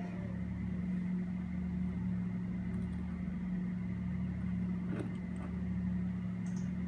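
A steady low hum, with one faint click about five seconds in.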